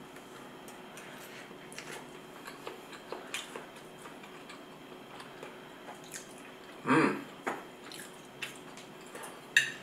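Quiet eating sounds: scattered light clicks of a spoon against a plate as someone takes bites, with a louder brief sound about seven seconds in and a sharp clink near the end.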